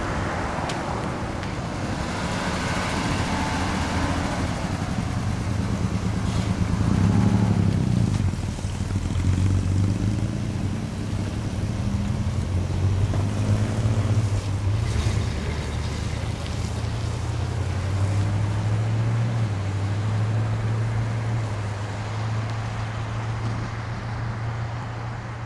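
Classic cars' engines pulling away at low speed, among them a 1951 Chevrolet Sedan Delivery. Their low hum rises and falls, loudest twice near the middle, over wind noise on the microphone.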